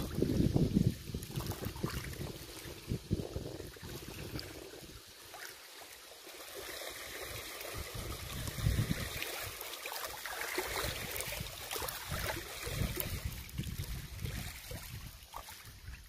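Wind gusting on a phone's microphone in uneven low rumbles, over a steady hiss of river water lapping.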